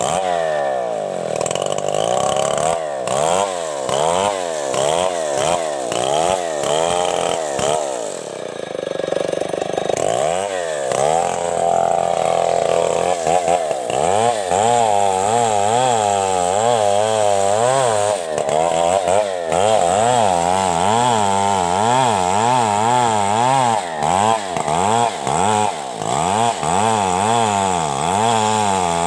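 Large two-stroke STIHL chainsaw ripping lengthwise along a coconut-palm log. Its engine pitch rises and falls over and over, more slowly at first and faster through the second half.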